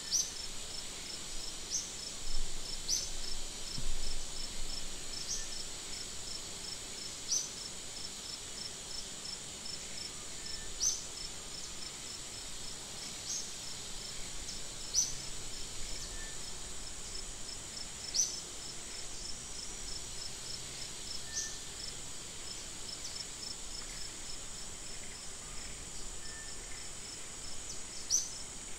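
Insects chirping steadily: a high continuous hum with a fast pulsing note beneath it, and a short high chirp repeating every second or two.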